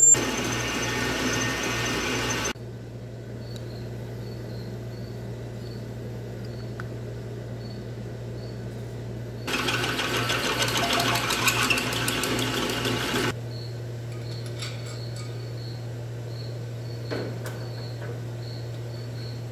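Electric drill running in two bursts, about two and a half seconds at the start and about four seconds midway, over a steady low hum.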